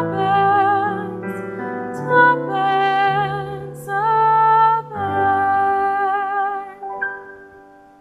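A woman singing a slow ballad with vibrato over piano accompaniment, the closing phrase of the song: her last held note ends about seven seconds in and the accompaniment fades out.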